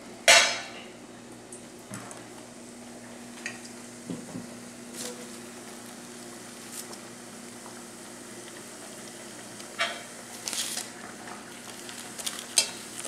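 Thattai, flat rice-flour discs, deep-frying in hot oil in a steel kadai: a steady low sizzle with a few scattered clicks. A sharp, loud burst of noise, the loudest sound here, comes just after the start.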